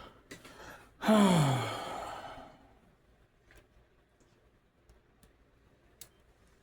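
A man's long, loud sigh about a second in, its pitch falling as it fades, followed by a few faint clicks of small plastic figure parts being handled.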